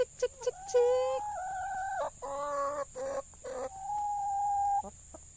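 Domestic hens clucking: a few quick short clucks, then three drawn-out calls, the last held on one pitch for about a second.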